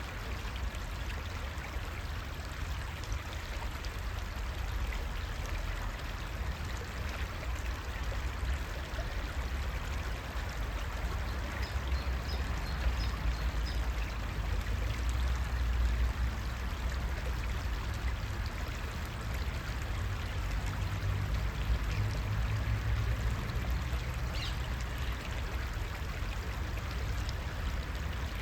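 Creek water flowing and trickling steadily, with a low rumble underneath and a few faint high chirps.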